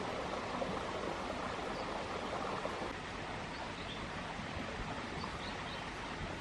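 Steady outdoor rushing hiss of natural ambience, a little quieter from about three seconds in, with a few faint, short, high bird chirps in the second half.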